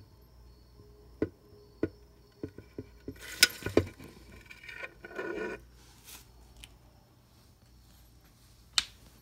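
Handling noise: a run of light taps and clicks, the phone knocking against the plastic enclosure. The loudest taps come about three and a half seconds in, a short rustle follows around five seconds, and one more tap comes near the end.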